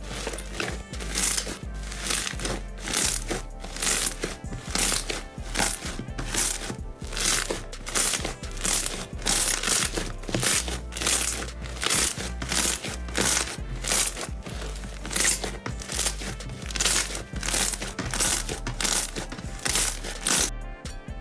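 Slime being squeezed and pressed by hand, crackling and crinkling in a regular rhythm about twice a second, over soft background music.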